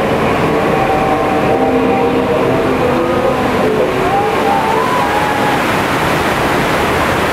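Staged flash-flood effect: a torrent of water rushing and splashing down the rock canyon in a loud, steady rush, with spray striking close by near the end. A few faint wavering tones sound over it in the first half.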